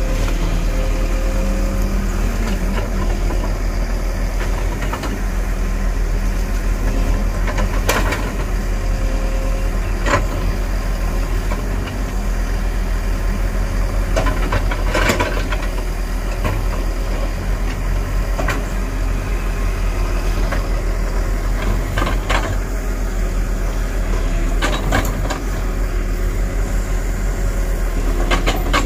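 JCB tracked excavator's diesel engine running steadily under load while the bucket digs and pulls a tree stump out of the ground, with a few sharp knocks and cracks along the way.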